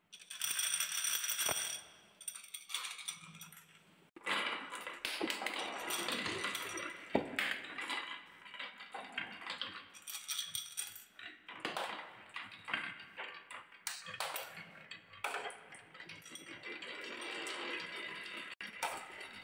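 A bowlful of small coloured balls poured onto a wooden wave-track marble run. Then a continuous clatter of the balls rolling down the wavy wooden tracks, clicking against the wood and against each other.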